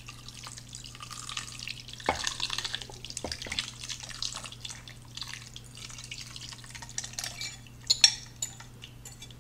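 Thin broth-based sauce pouring from a glass measuring cup and splashing over pieces of roast in a slow cooker crock. There are a few light knocks along the way and a louder one near the end.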